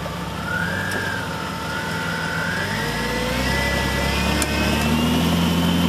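Off-road 4x4's engine running under load as it crawls over rocks, its revs climbing slowly. A thin whine rises in pitch alongside it.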